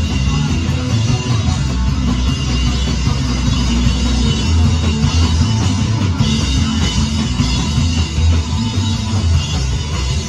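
Live rock band playing loud, with electric guitar and drum kit.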